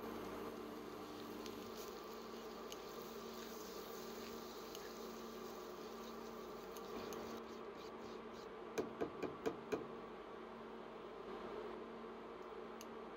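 Induction cooktop humming steadily under a saucepan of melted butter and flour, with faint sizzling and stirring. About two-thirds of the way through, four quick knocks of the spatula against the pan.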